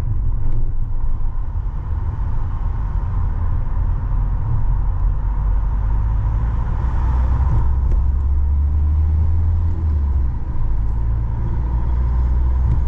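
Car driving, with a steady low rumble from the engine and road.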